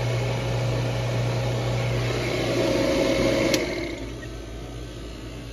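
Refrigerant recovery machine running with a steady hum while recovering the last refrigerant from the coil and line set, then a click about three and a half seconds in as it is shut off, after which the noise drops to a lower steady hum.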